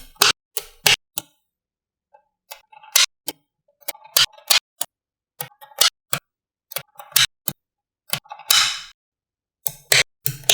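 Small magnetic balls clicking sharply as they snap together, two or three clicks a second at an uneven pace, with a pause about a second in and a short rattling rush near the end.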